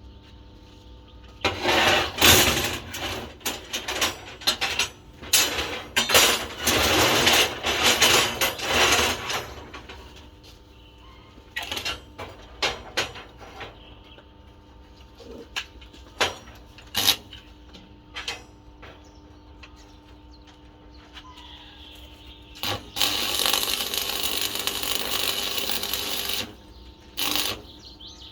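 Metalworking shop noise: several seconds of loud irregular tool noise and metal clatter, then a few separate knocks, then a steady noisy run of about three and a half seconds near the end.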